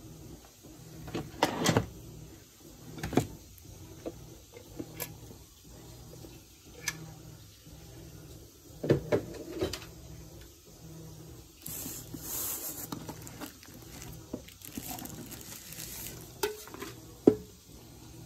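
Emeril Lagasse pressure cooker–air fryer being handled: scattered knocks and clatters of its lid and inner pot, with rustling of plastic wrapping about twelve seconds in and again a few seconds later, and a sharp click near the end.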